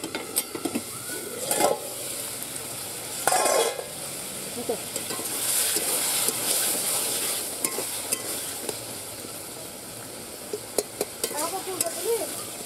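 Vegetables frying in a kadai, sizzling steadily while a long metal spatula stirs them, scraping and clicking against the pan. The sizzle is loudest around the middle.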